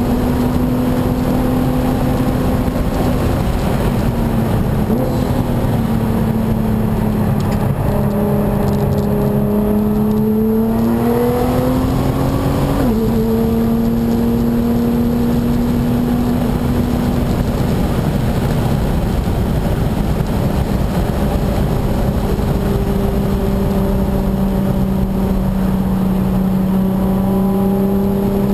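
Nissan GT-R's twin-turbo engine heard from inside the cabin at track speed, over road and wind noise. The engine note climbs under acceleration, drops sharply with a gear change about 13 seconds in, then eases down and holds steady.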